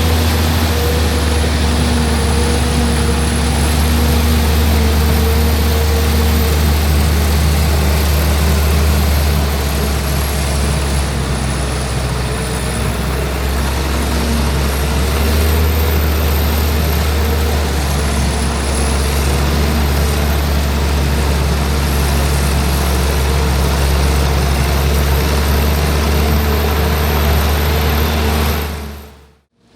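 Heavy diesel corn silage harvesting machinery running at work, a loud steady deep engine drone with a thin high whine above it that wavers up and down in pitch. The sound breaks off sharply for a moment near the end.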